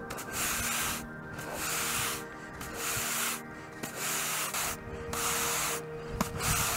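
Stiff-bristle push brush scrubbing synthetic putting-green turf with sand infill, to stand the blades up. It comes as about six strokes, roughly one a second, each a rasping scrape of half a second to a second.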